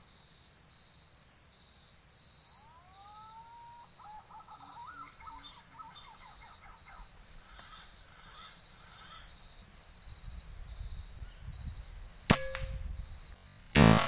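Air rifle firing near the end: a sharp crack, then a louder report about a second and a half later. Before that, a steady insect drone, with a bird whistling a few rising notes and a short run of calls.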